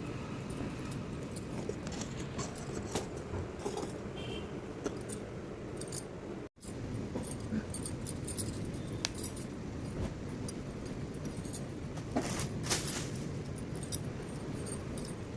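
Light clinks, ticks and rustles from items being handled, scattered over a steady low background noise, with a sudden brief dropout about six seconds in.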